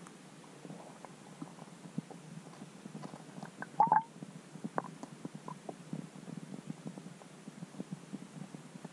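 Underwater sound picked up by a submerged camera: a low rumble with scattered faint clicks and ticks, and a short louder cluster of clicks about four seconds in.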